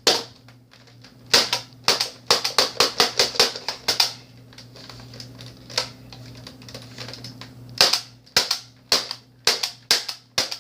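Plastic clacks of a Nerf Elite Rampage pump-action blaster being worked: a fast run of sharp clicks, about four a second, then a pause and another run near the end. The blaster is jamming and not firing properly.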